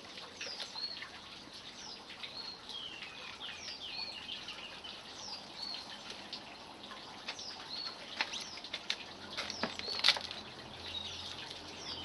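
Songbirds chirping and singing, with short repeated curved notes, over scattered clicks and rustles as bluebell bulb clumps are pulled apart and set into pots; one sharp click about ten seconds in is the loudest sound.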